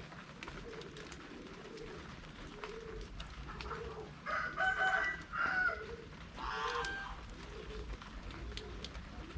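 Domestic pigeons cooing over and over in a low repeating call, with louder poultry calls about halfway through. Light drizzle adds a faint steady hiss and scattered drip ticks underneath.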